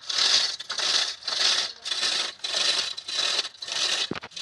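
Rhythmic back-and-forth scraping, about two strokes a second, with a brief low knock near the end.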